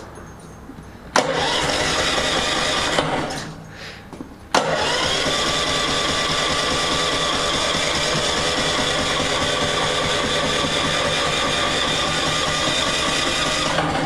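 Honda Harmony 1011 lawn tractor's electric starter cranking the engine twice: a short crank of about two seconds, then a long one of about nine seconds that spins up and holds steady. The engine does not catch, which the owner puts down to probably bad gas.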